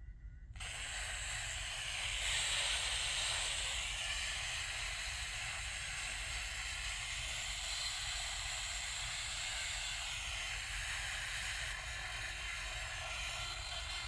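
Panasonic SL-SW960V Discman making a steady hissing noise while its CD spins, starting abruptly about half a second in.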